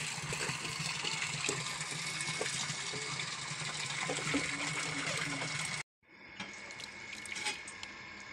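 Steady rush of running water, like a tap running. After a sudden cut about six seconds in, a few light clicks and scrapes of a metal spoon working soaked rice through a plastic mesh strainer over a steel bowl.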